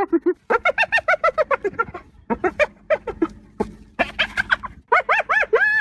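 Hyena giggling: fast runs of short, high-pitched yelping notes, several a second, broken by brief pauses. Near the end the notes grow longer, each one rising and falling in pitch.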